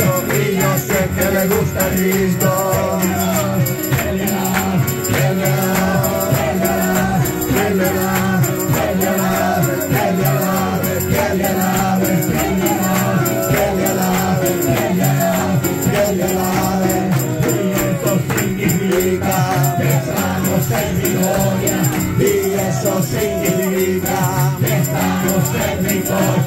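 Lively worship music: an electronic keyboard with voices singing, and hand claps and rattling hand percussion keeping a steady beat.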